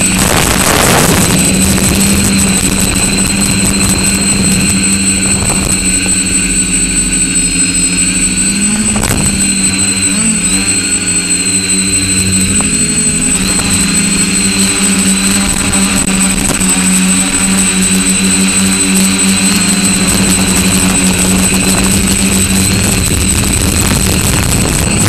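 Quadcopter's electric motors and propellers running with a steady hum and a thin high whine, heard from a camera mounted on the craft, with a rushing noise of air. The hum's pitch wavers briefly around the middle.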